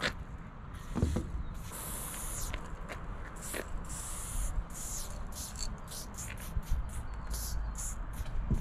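Aerosol spray-paint can hissing in bursts as black paint is sprayed onto a wall: a few longer sprays of about a second, then a quick run of short puffs in the second half as small dots and strokes are laid down.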